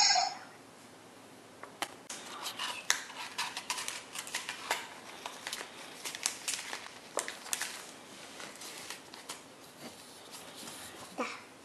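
A short animal call from the Super Animals card reader's small speaker ends right at the start. Then comes a long run of light, irregular plastic crinkles and clicks as collector cards are slid in and out of the album's clear plastic pockets.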